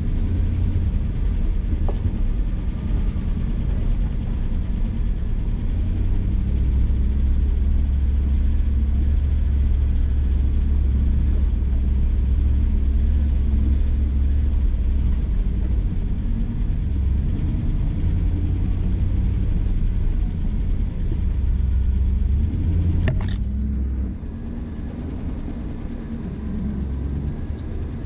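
Jeep Grand Cherokee driving slowly along a dirt trail: a steady low rumble of engine and tyres on packed dirt. A single sharp click near the end, after which the rumble gets quieter.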